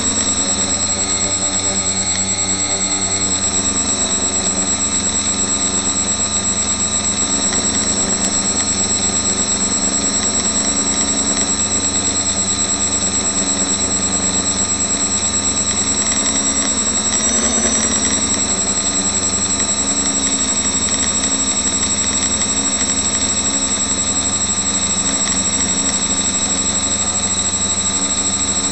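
Quadcopter's four Suppo 2212 1200kv brushless outrunner motors spinning 8x4.5 GemFan propellers in flight: a loud, steady whine of several held tones, briefly louder a little past the middle. Heard through a keychain camera fixed directly to the frame.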